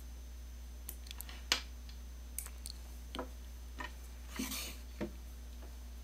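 Scattered small plastic clicks and taps from handling an RJ45 network cable plug and its plastic inline coupler, with a short rustle of the cable about four and a half seconds in.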